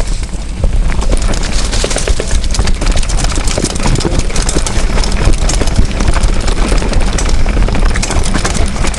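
Mountain bike rolling along a rough dirt singletrack, heard from a camera mounted on the bike: a constant rattle of clicks and knocks from the bike and mount jolting over bumps, tyre noise on the dirt, and a heavy low rumble throughout.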